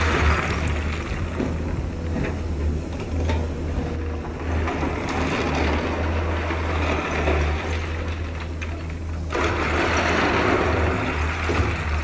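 Heavy diesel engine of earthmoving machinery running steadily with a rough mechanical clatter over it; a rush of louder noise comes in sharply about nine seconds in and eases off near the end.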